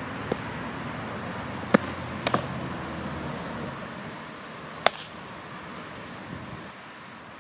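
Softball smacking into leather gloves: a catcher's mitt taking pitches and the pitcher's glove taking the throws back. There are sharp single pops, the loudest just under two seconds in, a quick double pop just after it, and another strong pop near five seconds, over a steady background noise.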